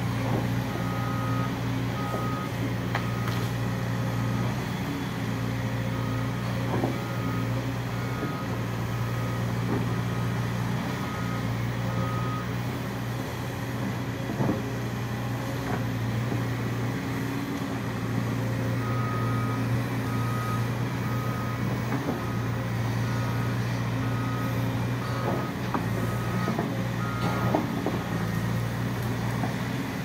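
Volvo EC210 crawler excavator's diesel engine running steadily as it digs, with occasional knocks of rock. A warning alarm beeps about two times a second for the first twelve seconds or so, stops, and starts again about twenty seconds in.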